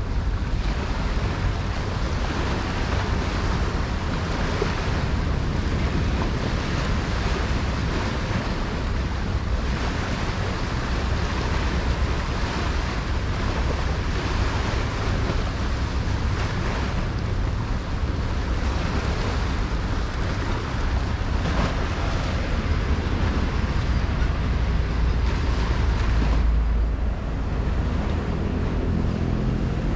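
Steady rushing wind-and-water noise with wind buffeting the microphone, heavy in the low end. The low rumble swells for a moment about 26 seconds in.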